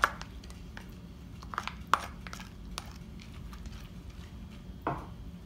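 A silicone spatula scraping soaked lentils out of a bowl into a nonstick pan and pushing them around, with a few light clicks and knocks of the spatula against the bowl and pan.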